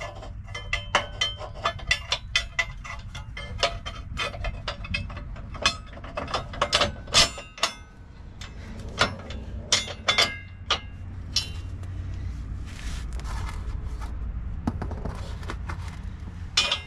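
Metal hardware clicking and clinking as a bolt with washers and a spacer is worked into the lower control arm mount of a steel drop bracket: a quick run of sharp clicks for about the first twelve seconds, then only a few.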